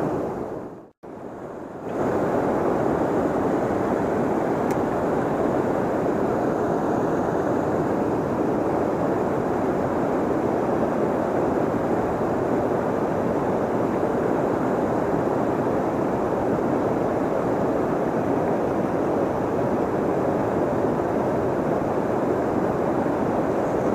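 Steady rushing of fast-flowing, turbulent river water. The sound briefly dips and cuts out about a second in, then holds at an even level.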